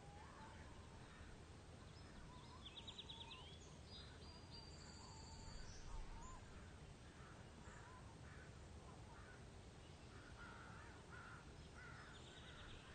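Faint bird ambience: several birds calling over a low steady hiss, with a rapid trill about three seconds in and again near the end.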